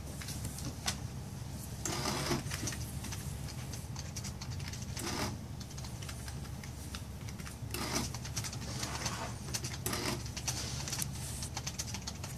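Short scratchy rubbing strokes of a pen and hand on a card sketch card, a few seconds apart, with light ticks and taps in between, over a steady low hum.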